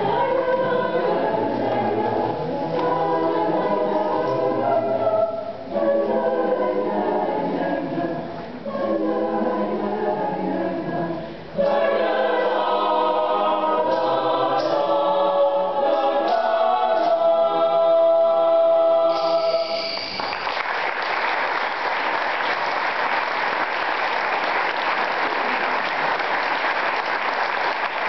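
Small mixed choir singing a cappella, ending on a held chord about 19 seconds in, followed by the audience applauding.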